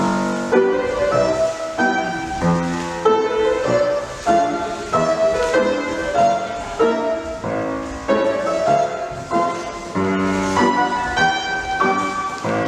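Piano music with a steady, regular beat, of the kind played to accompany a ballet barre exercise.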